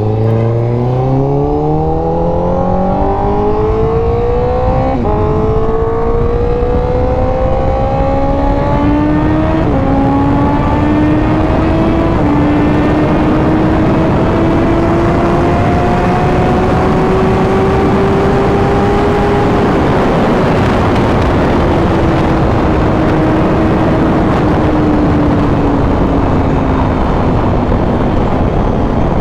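Honda CBR1000RR-R Fireblade SP's inline-four engine accelerating hard through the gears, its pitch climbing and dropping at upshifts about five and ten seconds in. It then pulls steadily at high speed, easing off gradually over the last several seconds, under heavy wind noise.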